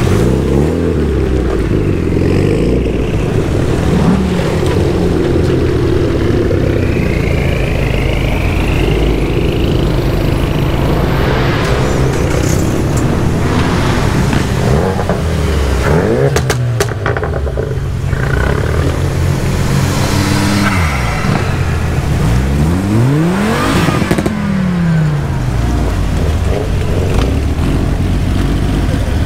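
Car engines and exhausts revving: the engine note climbs and falls back several times, with sharper revs about two-thirds of the way through.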